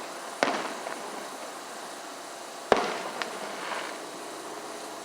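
Fireworks going off: two loud bangs about two seconds apart, each trailing off over about a second, with a smaller pop just after the second bang.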